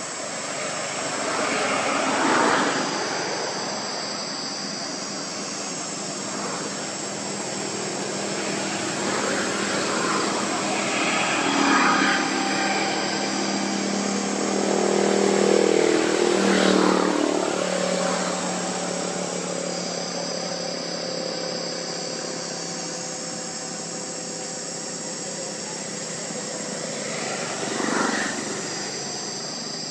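Outdoor ambience of a steady high-pitched insect drone, with motor engines swelling up and fading away several times, the longest and loudest pass about halfway through.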